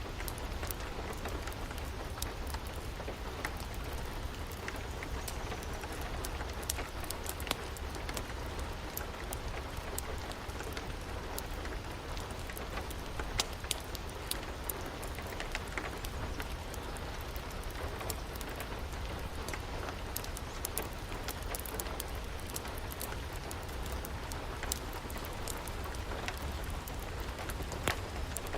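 Steady rain falling, with frequent scattered sharp crackles and pops of a wood fire.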